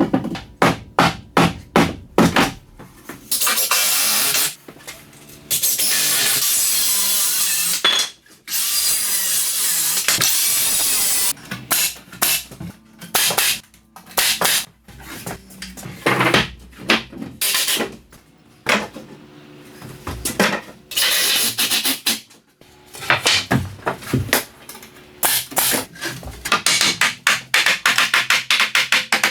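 Carpentry while framing interior partition walls: quick runs of sharp hammer-like knocks, and three long bursts of a power tool of a few seconds each in the first half, with shorter tool bursts and rapid strikes later on.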